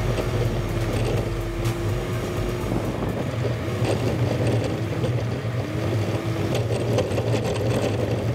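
Off-road vehicle driving along a gravel dirt road: a steady engine drone with tyre noise and scattered clicks of small stones.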